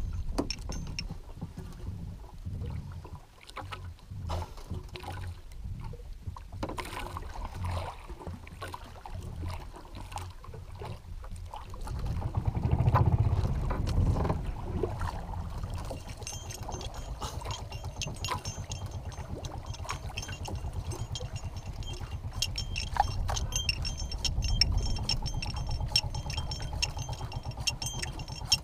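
Small outrigger fishing boat's engine running at idle, with a low steady rumble; it swells louder for a couple of seconds near the middle, then settles into an even, fast ticking run.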